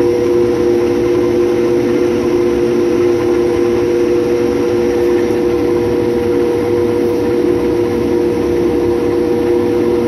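A 6130 combine harvester running steadily while cutting: a constant drone with a strong, even whine over a low rumble.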